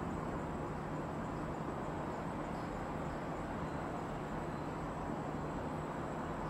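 Steady low rumble and hiss of outdoor background noise, with a faint high-pitched whine held throughout. The bursts of the distant fireworks give no audible bangs.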